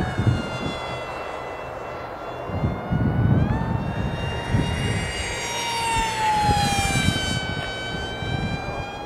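Radio-controlled model jet flying overhead, its engine giving a high whine with many overtones. The pitch rises a little about three and a half seconds in and glides down around six to seven seconds in, over a low gusty rumble of wind on the microphone.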